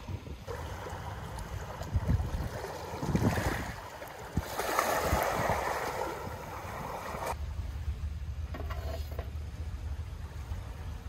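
Small waves washing over a pebble shore, twice, the second louder and cutting off sharply, with a steady low wind rumble on the microphone.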